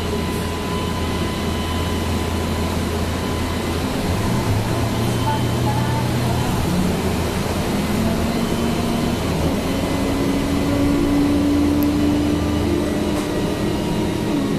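Road vehicle pulling away on a flooded, wet road, heard from inside: a steady rush of road noise, with the motor's tone climbing in pitch from about four seconds in as it picks up speed.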